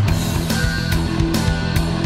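Background heavy rock music with electric guitar and a steady drum beat.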